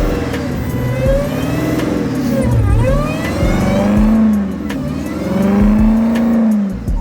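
A car engine revving hard, its pitch climbing and dropping several times as the car is driven and whipped around in the snow.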